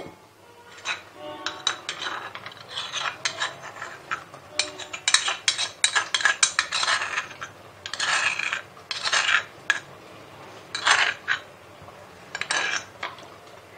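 Crushed garlic being scraped out of a mortar into a steel mesh strainer: a knock at the very start, then repeated rasping scrapes in uneven clusters, busiest around the middle.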